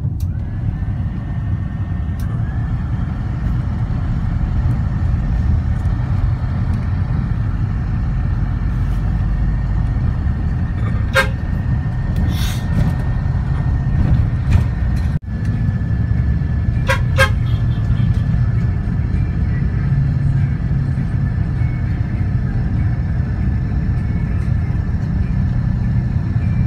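Steady rumble of a moving road vehicle heard from on board. A vehicle horn toots once briefly about 11 seconds in, and twice in quick succession about 17 seconds in.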